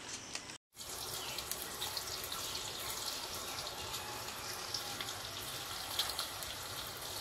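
Raw banana slices deep-frying in hot oil in a karai: a steady sizzle with many small crackles, after a brief dropout about half a second in.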